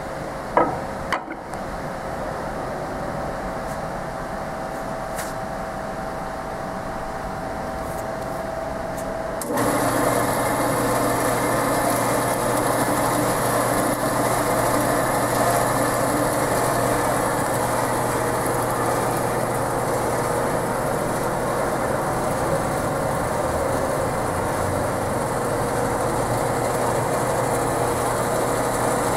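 Horizontal band saw running with a steady hum, with a couple of sharp knocks from the vise being clamped on the steel bar in the first second or so. About nine and a half seconds in, the machine's sound steps up, louder and hissier, and stays steady.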